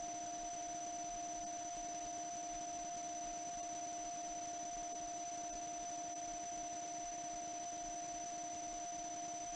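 Steady electrical hum and whine over a faint even hiss, a few constant tones with no change.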